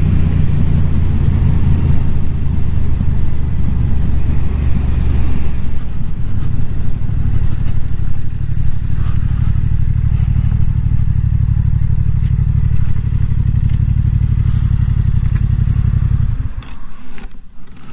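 Yamaha motorcycle engine running as the bike rolls slowly to a stop, then idling steadily. It stops about sixteen and a half seconds in.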